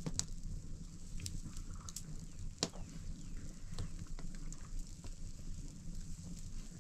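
Open wood fire crackling under a flatbread griddle, with a few sharp pops scattered through a steady low rumble.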